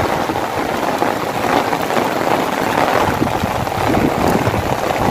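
Heavy rain falling, a steady hiss.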